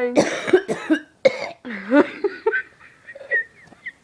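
A woman's coughing fit: several harsh coughs in quick succession, then strained, voiced gasps that trail off near the end.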